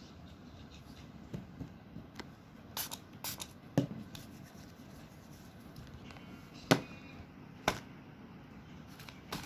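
Paper squishies being handled: soft paper rustling and crinkling, broken by a few sharp clicks or taps, the loudest about two-thirds of the way through.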